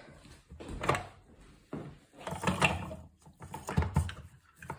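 Plastic clunks and knocks of a push-down food chopper being opened and its lid and bowl handled, in several separate bursts.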